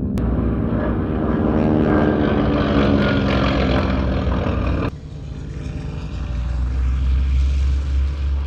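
Piston-engine propeller planes flying past, their engines droning with a dense stack of tones that drifts slightly in pitch, as picked up by a parabolic dish microphone. About five seconds in, the sound cuts abruptly to a quieter recording of a single radial-engine plane approaching, with a deep hum that grows louder.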